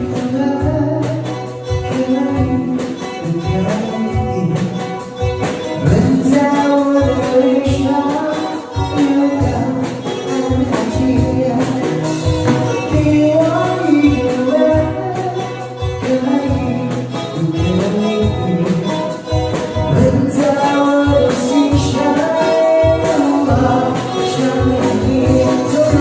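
A song playing: a melodic lead line over steady accompaniment with a regular beat.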